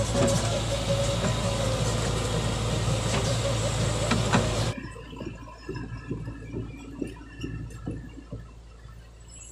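Heavy machine engine, most likely the excavator's diesel, running steadily under a loud wash of noise, which cuts off abruptly about five seconds in, leaving quieter low knocks.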